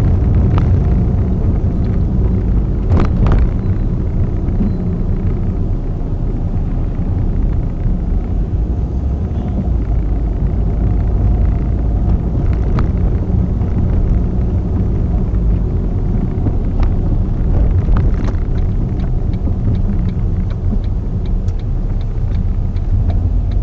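Road noise inside a moving car in city traffic: a steady low rumble of engine and tyres, with a few brief knocks and a run of faint quick ticks near the end.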